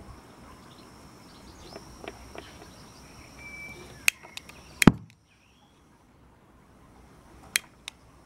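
A few sharp metallic clicks and taps from hands working the brass fittings in the cab of a small live-steam tank locomotive. There are three clicks near the middle, the loudest about five seconds in, and two more near the end, over a faint background with a thin, steady high tone.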